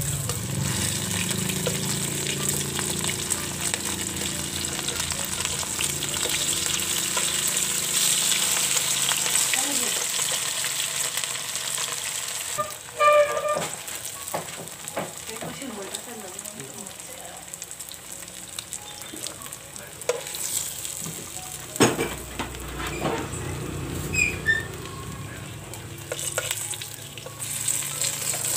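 Shrimp and moringa fritters sizzling in hot oil in a pan, with a steady hiss that grows fainter about halfway through. In the second half, metal tongs click against the pan as the fritters are turned, with a loud clack about 13 seconds in and another near 22 seconds.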